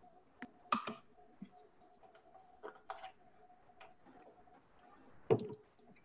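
Scattered faint clicks and knocks, about eight at uneven intervals with the loudest a little after five seconds in, over a faint steady hum.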